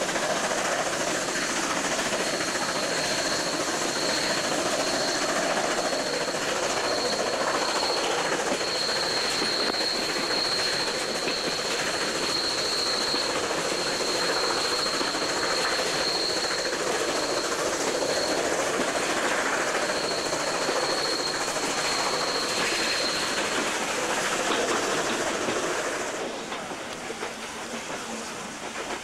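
Steam-hauled train running, heard from an open carriage window: steady rolling wheel and rail noise with a high, thin wheel squeal as the train rounds a curve. The squeal fades away a few seconds before the end, and the running noise drops off near the end.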